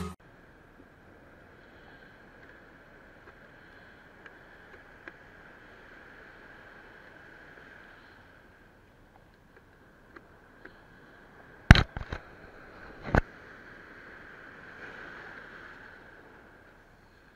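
Faint, muffled hiss of surf breaking on a beach. A few sharp knocks against the camera interrupt it, a cluster about twelve seconds in and one more a second later.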